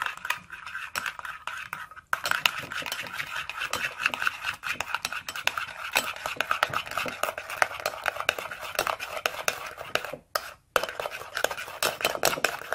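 A metal spoon beating mắm tôm (fermented shrimp paste) sauce in a ceramic bowl: rapid clinks and scrapes against the bowl. The sauce is being whipped until frothy. The beating picks up about two seconds in and stops briefly near the end.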